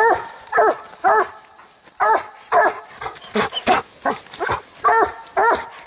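Coonhounds barking treed at the foot of a tree, short barks coming about two a second, each rising and falling in pitch: the hounds have a raccoon up the tree.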